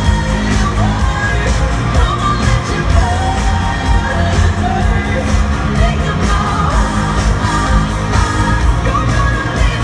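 Live pop concert in an arena: a loud amplified band with a strong bass beat and a woman singing the lead vocal, picked up on a phone in the crowd.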